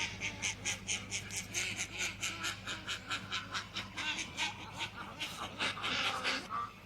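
A group of domestic ducks quacking and chattering in a fast run of short calls, over a steady low hum.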